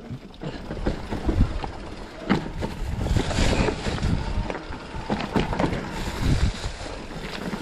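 Mountain bike riding down a rocky singletrack: uneven knocks and rattles from the tyres, suspension and frame over stones, with wind rushing on the microphone.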